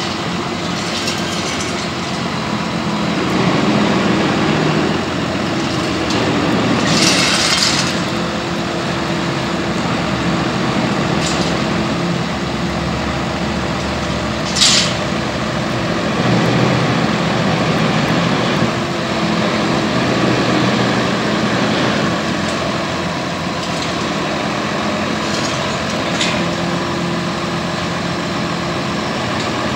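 Heavy vehicle engines running steadily, with a hissing burst of about a second near a quarter of the way in and a short sharp hiss about halfway through, like compressed air being released.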